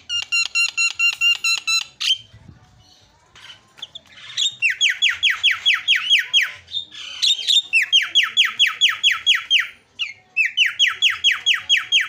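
Javan myna (jalak kebo) singing: a rapid run of repeated ringing notes, then three bursts of about two seconds each of quick falling whistled notes, about five a second.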